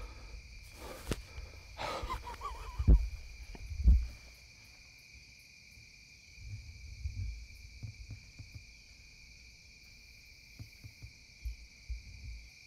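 Insects trilling steadily, with several heavy thuds and brushy rustles in the first four seconds and softer scattered rustling later on.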